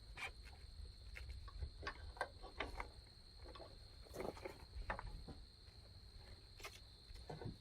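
Faint, irregular clicks and taps of plastic headlight-assembly parts being handled and fitted as the slider adjuster is worked into place, over a steady thin high-pitched tone.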